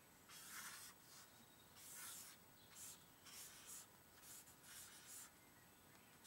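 Faint scratching of writing on a paper pad, in about six short strokes with pauses between.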